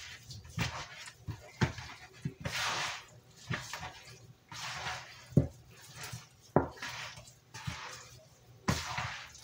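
Gloved hand mixing seasoned raw chicken drumsticks in a bowl: wet squishing and rustling, with pieces knocking against the bowl about once a second.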